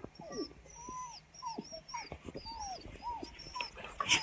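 A person imitating a crying dog: a string of short, high whimpering whines, each rising and falling in pitch. About four seconds in comes a single loud knock.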